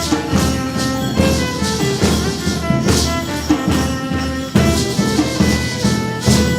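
Instrumental music with drums and cymbals under sustained melody notes, with no singing.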